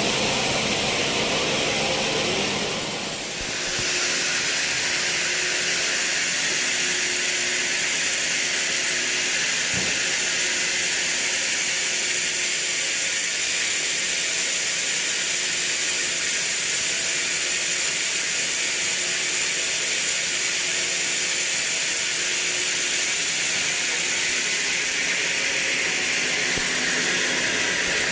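Sawmill saw cutting teak timber into boards: a steady, high-pitched hiss with a faint hum beneath it, which settles into its steady form about three seconds in.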